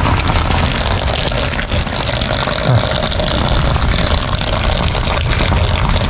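Hailstorm: strong wind buffeting the microphone in a steady low rumble, with a fine, continuous patter of falling hail.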